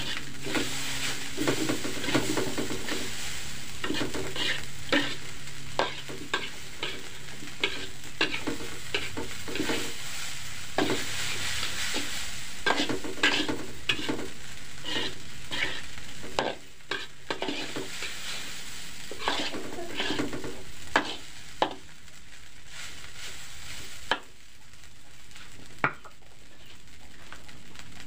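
Metal spatula scraping and clanking against a large aluminium wok as fried rice is stirred, over the steady sizzle of the rice frying. The strokes come thick and fast, then thin out to a few in the last several seconds.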